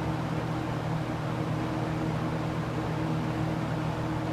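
1975 Galaxy (Lasko) Model 3714 box fan running steadily on its high setting: rushing air over a low, even hum. This is the classic wide-blade 'spatter' sound of its older fat-blade set.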